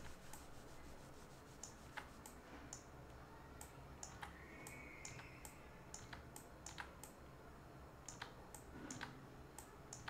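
Faint, irregular clicks of a computer mouse and keyboard, roughly two a second, as a roto shape is drawn and frames are stepped through.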